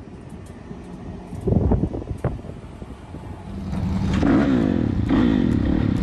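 Kawasaki dirt bike engine revving up and pulling away from about three and a half seconds in, its pitch rising and falling with the throttle. Before that, a low rumble with a loud thump about a second and a half in.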